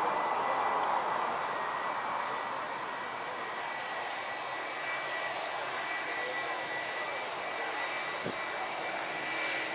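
Boeing 757 airliner taxiing, its two jet engines at idle: a steady rushing whine with thin high tones held throughout.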